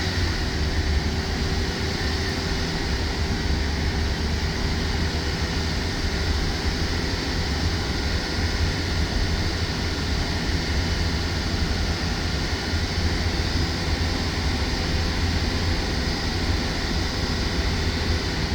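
Freshly rebuilt Audi A4 engine running at a steady speed during its break-in run, with a deep steady hum and a constant higher tone over it.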